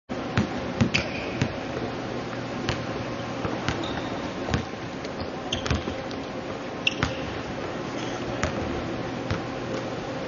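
Basketballs bouncing irregularly on a hardwood court, with a few short sneaker squeaks, over a steady low hum.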